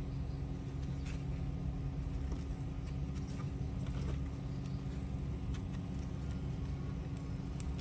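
A steady low mechanical hum and rumble, with a few faint clicks.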